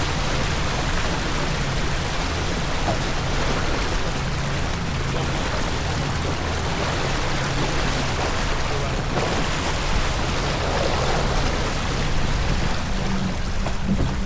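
Steady wind noise on the microphone and water rushing along the hull of a racing sailboat under way.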